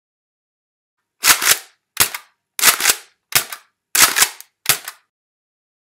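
Six sharp gunshot-like bangs, several of them doubled, about two-thirds of a second apart, each dying away quickly.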